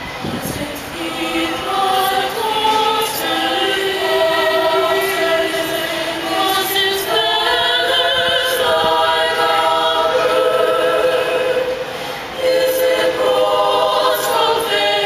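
Women's choir singing in several-part harmony, with long held notes and short breaks between phrases near the start and about twelve seconds in.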